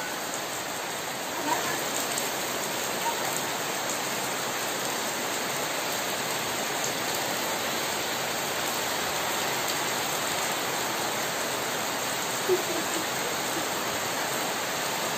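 Heavy rain falling steadily on a concrete yard, potted plants and trees, an even hiss with a few brief louder taps from single drops.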